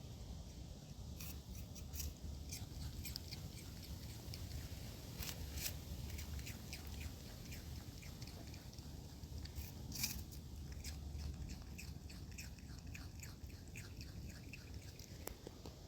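A possum chewing and crunching a piece of apple: many small, irregular clicks, several a second, over a steady low background hum.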